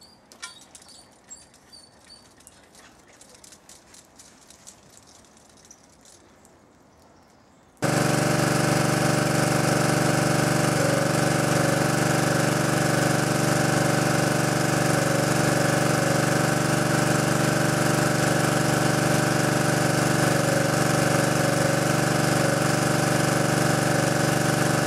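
Window water-penetration test rig running: a loud, steady mechanical drone with a hiss of water spraying from the rain-rack nozzles onto the glass. It switches on abruptly about eight seconds in, after faint clicks of handling.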